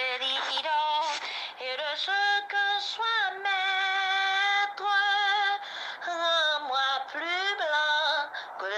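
A woman singing solo, holding long notes with a slight waver and sliding between pitches; the voice sounds thin, with almost no bass.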